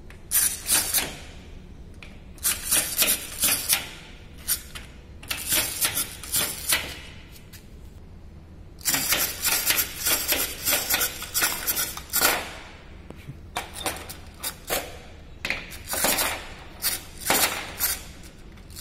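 Wind-up plastic acrobat toy flipping over and over on a tabletop: its clockwork and plastic hands and feet rattle out quick runs of clicks and clatter, broken by short pauses.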